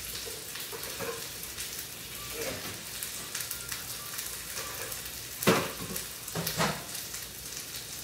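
Ribeye steak sizzling in a hot skillet: a steady crackling hiss. Two louder knocks come about a second apart, past the middle.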